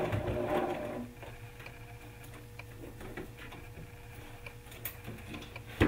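Sewing machine stitching a short run on a long basting stitch, stopping about a second in with the needle left down; after that, scattered light clicks from handling the fabric and pins, with a sharper click near the end.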